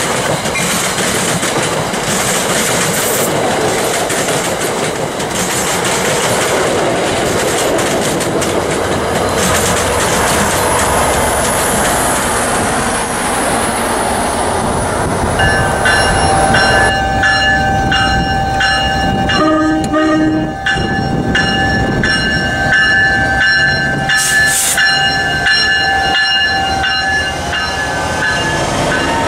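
Passenger train going by with a rushing rumble of wheels on rail. Then, from about halfway, the multi-note horn of a New Jersey Transit PL42AC diesel locomotive sounds in long blasts for about ten seconds, and the locomotive runs past close by near the end.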